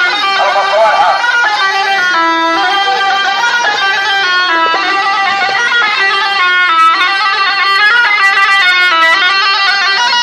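Loud instrumental Arabic party music: a fast, ornamented melody moving in quick stepped notes over a steady accompaniment.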